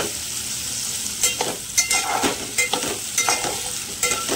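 Chopped onions sizzling in hot oil in a metal pot as a metal spatula stirs and turns them, with irregular clinks and scrapes of the spatula against the pot over a steady frying hiss.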